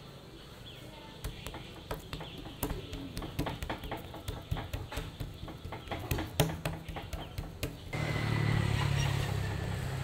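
Irregular sharp taps and knocks of roti canai being prepared at a street-food stall. About eight seconds in, a steady low rumble starts suddenly.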